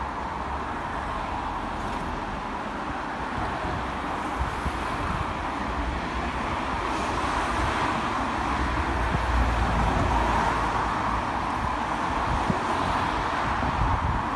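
Road traffic going by: a steady wash of tyre and engine noise that grows louder about halfway through and stays up.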